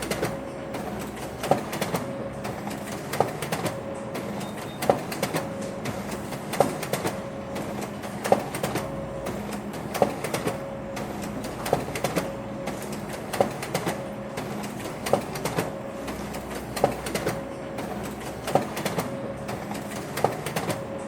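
Office printer running through a repeating mechanical cycle: a sharp click about every 1.7 seconds, lighter clicks between, and a short steady whirr after each click over a low hum.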